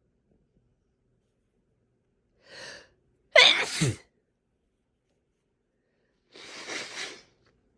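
A person sneezing once, loud and sudden. A short, quieter intake of breath comes just before it, and a softer breathy sound follows about three seconds later.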